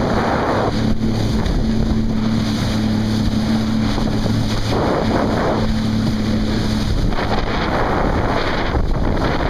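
Jet ski engine running at speed, a steady drone under rushing spray and wind buffeting the microphone, with louder surges of splashing water at the start, about halfway and around seven seconds in.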